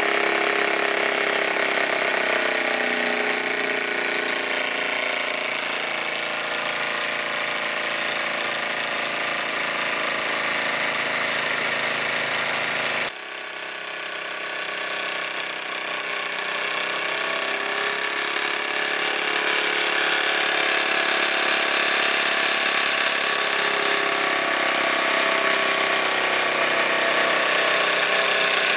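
Wilesco D18 toy steam engine running, a steady mechanical whirr whose pitch drifts slowly up and down as its speed wanders. There is a brief dip in level about halfway through.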